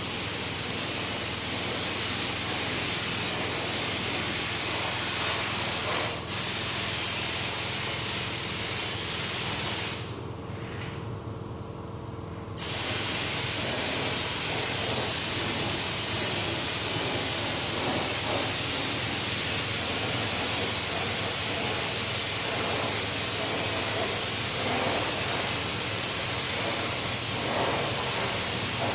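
Loud steady hiss of a pressurised spray jet, triggered on at the start, cut very briefly about six seconds in and paused for about two and a half seconds around ten seconds in before resuming. A faint steady hum runs underneath.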